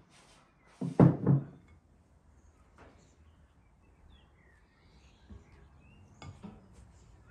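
A quick cluster of knocks from a spatula tapped against a glass mixing bowl of chocolate cake batter about a second in. After that, quiet handling and spreading of the batter, a few small clicks near the end, and faint bird chirps in the background.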